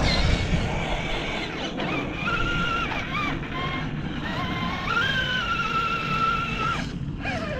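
Electric motor and gear drive of an Axial SCX6 RC crawler whining as it climbs concrete steps. The pitch rises and falls with the throttle over rough ground noise, and the whine cuts off about seven seconds in.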